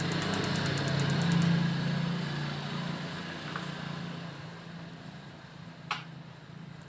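Modena clothes dryer running with a steady low hum that gradually dies away. A fast ticking stops about a second and a half in, and there is one sharp click near the end.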